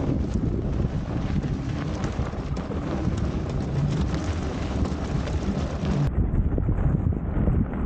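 Steady wind rumble and rolling noise from an e-bike riding over packed snow, picked up by a camera mounted on the bike. About six seconds in the sound changes abruptly and the high hiss drops away.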